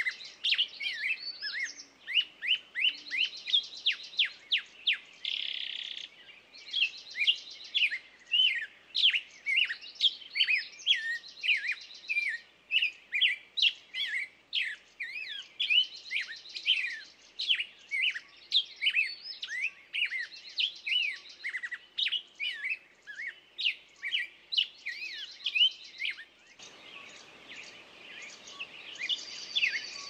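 Songbirds singing: a dense run of quick high chirps, broken every few seconds by a buzzy trill lasting a second or so. A faint low hiss comes up near the end.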